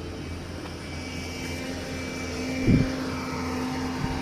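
Diesel engine of a heavy earth-moving machine, likely an excavator, running steadily with an even low hum. A brief voice sound cuts in about two-thirds of the way through.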